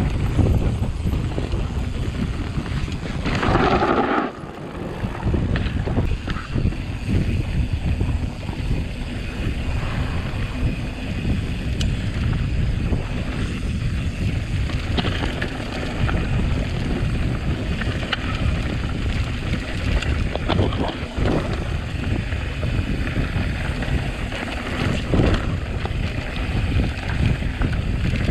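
Wind buffeting the microphone of a camera on a moving mountain bike, a steady low rumble with scattered knocks and rattles from riding over rough ground. A louder gust comes about three seconds in, followed by a brief lull.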